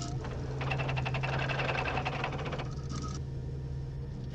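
Rapid chattering clicks and beeps of a computer terminal as lines of text scroll across its screen, over a steady electrical hum; the chatter stops about three seconds in.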